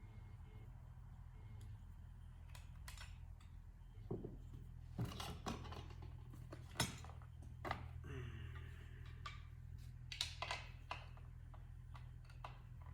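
Scattered clicks, clinks and knocks of small metal hardware and hand tools being handled, with a short scrape about eight seconds in, over a steady low hum.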